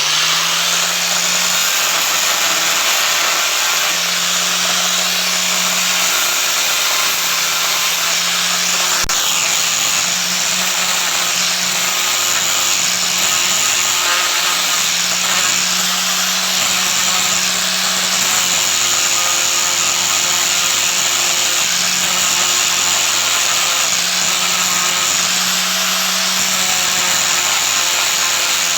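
Electric power tool running continuously under load, a loud steady hiss with a motor hum that fades and returns every few seconds as the work is pressed on. A single sharp click about nine seconds in.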